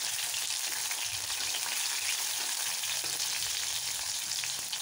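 Tomato slices frying in hot oil in a black iron kadai, a steady sizzle.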